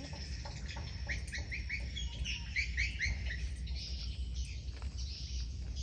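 A songbird calling a quick run of short, high chirps, about four a second, starting about a second in and lasting some two seconds, over a steady low background noise.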